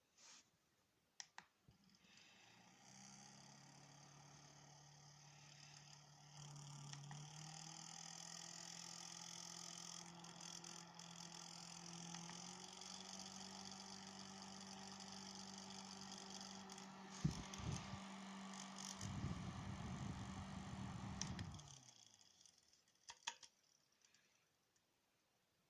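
A small electric motor, the drive of a homemade mini fan, starts up after a few clicks and runs with a steady hum that steps up in pitch twice. A rough rubbing noise joins near the end, then the motor winds down, with a few clicks after it stops.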